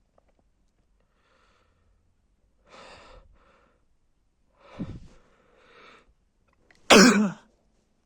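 A man's build-up breaths, a few sharp inhalations with a voiced catch, then one loud sneeze about seven seconds in.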